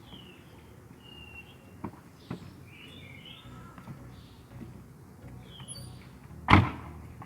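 Small birds chirping with short falling calls, over a few faint knocks; a single loud thump about six and a half seconds in.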